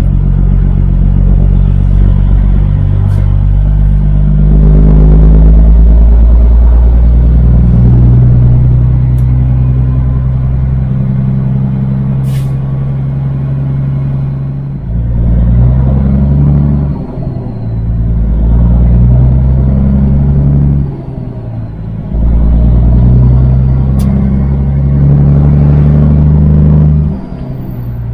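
Semi truck's diesel engine pulling under load with a loud exhaust note. It keeps a steady drone for a while, then dips briefly four times as the driver shifts through the gears.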